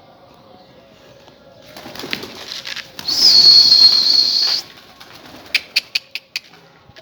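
Domestic pigeons flapping their wings as they take off. About halfway through there is a loud, high, steady whistle lasting about a second and a half, and a few sharp claps follow near the end.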